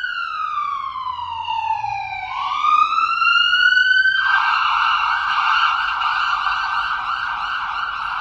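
Ambulance siren sounding loudly: one slow wail falling and then rising in pitch, switching about four seconds in to a rapid warbling yelp.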